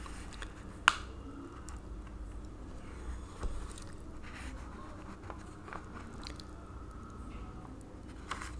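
Quiet room tone with a steady low hum and a few small sharp clicks: a distinct click about a second in, a couple more around the middle and one near the end.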